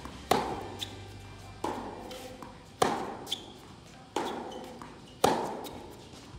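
Tennis rally: five racket strikes on the ball about a second and a quarter apart, alternating loud near hits and quieter far hits, with lighter ball bounces in between. Each hit echoes in a large indoor hall.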